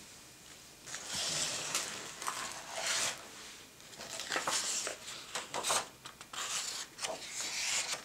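Hardcover picture book being opened and its pages turned by hand: a run of short paper rustles and swishes as the cover, dust jacket and stiff pages slide and flip over.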